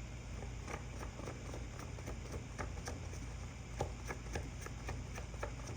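Small irregular clicks and soft rustles of tarot cards being handled and laid down on a table, over a low steady hum.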